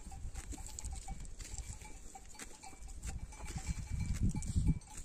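Sheep flock sounds with faint bleating and a bell.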